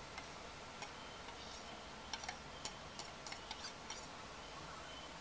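Metal knife tapping and scraping against a tin lid, a quick run of light clicks about two seconds in, as melted lip balm is scraped off the lid into a small container.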